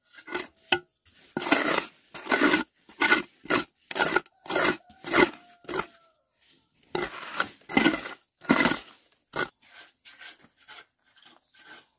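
Steel trowel scraping and scooping gritty cement mortar against brickwork, a run of rough scrapes about one every half second that thins out in the last few seconds.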